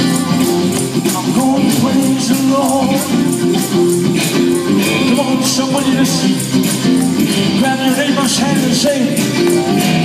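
Live band playing a worship song: electric guitars and drums with a steady beat, and a man singing over them.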